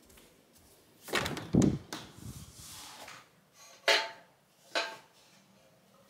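A sliding glass balcony door being opened, with a heavy thud about a second in and a sliding rush after it, then two short sharp clatters.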